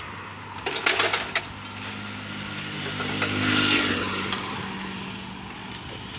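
A motor vehicle passing on the road, its engine swelling to a peak about three and a half seconds in and then fading away. Just before it, about a second in, comes a quick cluster of sharp clicks and knocks.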